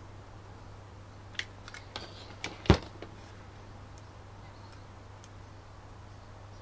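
A few small clicks and knocks from handling tools and parts at the workbench, the loudest a sharp knock about two and a half seconds in, over a steady low hum.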